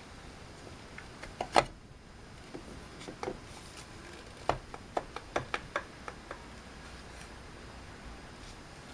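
Norinco JW-14 rifle parts being handled and seated into the stock: scattered clicks and knocks of metal against the stock, the loudest about one and a half seconds in and a quick run of them a few seconds later.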